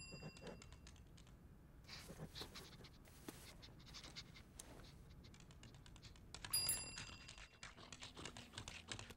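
Faint scratching and soft clicks, then a small metal bell rings briefly about six and a half seconds in.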